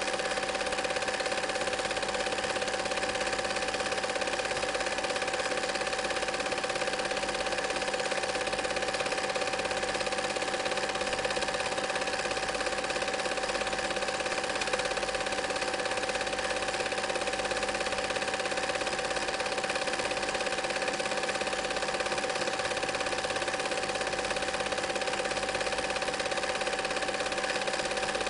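Film projector running: the steady mechanical clatter of the film transport, with a constant whirring hum beneath it.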